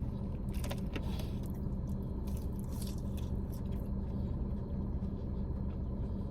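Close-up chewing and biting of a fried, breaded mozzarella stick, with scattered short crisp strokes over a steady low hum.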